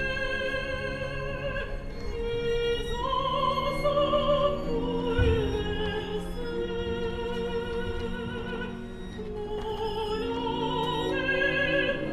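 Operatic singing with orchestra: voices hold long notes with wide vibrato over bowed strings. A single low thud comes about five seconds in.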